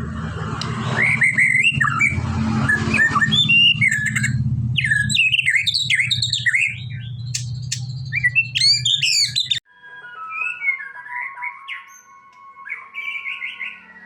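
White-rumped shama (murai batu) singing loudly: a rapid, varied run of whistles, chirps and sweeping notes over a steady low hum. About ten seconds in, the hum cuts off abruptly and quieter birdsong with longer held notes carries on.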